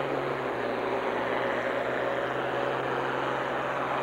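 Farm stock diesel tractor pulling a weight-transfer sled under full load, its engine running hard with a steady, heavy drone.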